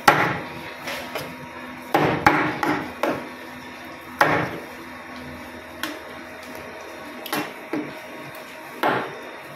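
Large kitchen knife chopping through black pomfret onto a plastic cutting board: sharp chops at irregular intervals, a second or two apart, some in quick pairs.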